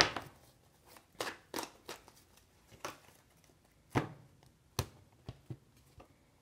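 A deck of oracle cards being shuffled and handled, giving a string of irregular sharp slaps and taps, the loudest right at the start.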